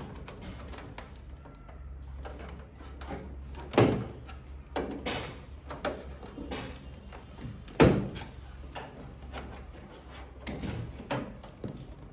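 Hard objects being handled and set down, with scattered clicks and clatter and two sharp knocks about four seconds apart, over a low steady hum.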